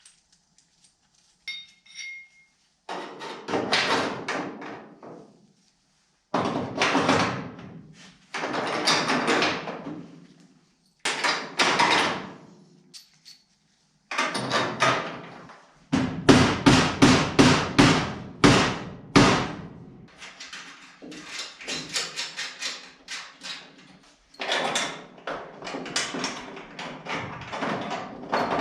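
Hammer blows on the sheet steel of a car door, in quick runs of sharp strikes with short pauses between, reaching about four blows a second at the fastest: hammer-and-dolly work knocking out dents in the 1936 Ford roadster's door.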